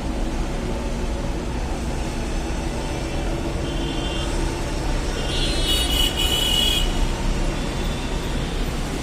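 Steady low rumble of background road traffic. A vehicle horn sounds briefly about four seconds in and again, louder and longer, around six seconds in.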